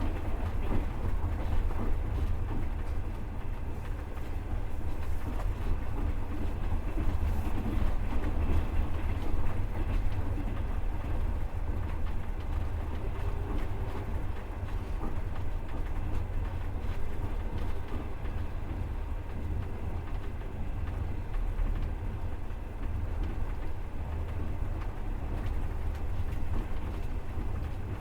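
Steady rumble and clatter of a passenger train's wheels running on the rails, heard from inside the carriage.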